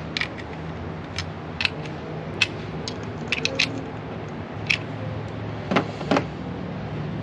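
Hand tools and small metal parts being handled in the engine bay: irregular sharp metallic clicks and clinks, with two duller knocks close together about six seconds in, over a steady low hum.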